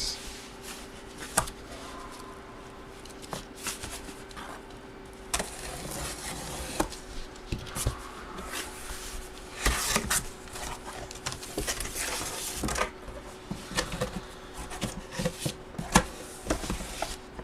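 A box of sports memorabilia being opened and its packaging handled: scattered rustles, scrapes and taps with a few sharper clicks, over a faint steady hum.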